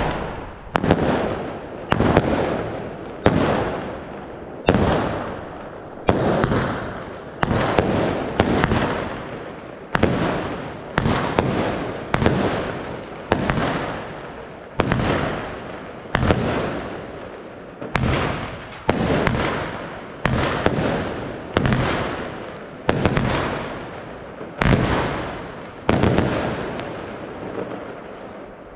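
Fireshow 'Wenus' 20 mm, 25-shot consumer firework battery firing its shots one after another, about one a second, each a sharp bang that fades away before the next; about two dozen shots in all.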